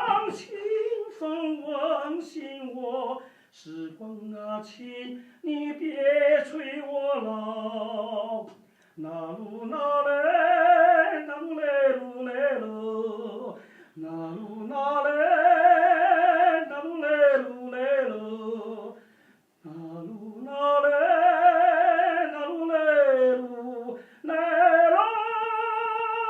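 A solo voice singing slow phrases with a marked vibrato, short pauses between them, ending on a long held note near the end.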